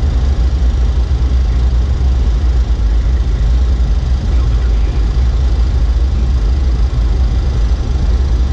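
Steady flight-deck noise of a Boeing 737-300 on approach to land: a loud, even low rumble of airflow and engine noise with a hiss above it.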